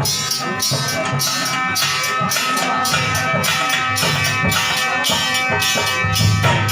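Instrumental music with a steady, quick beat and held melody notes.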